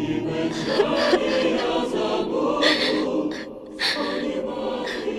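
Wordless choir singing softly as film soundtrack music.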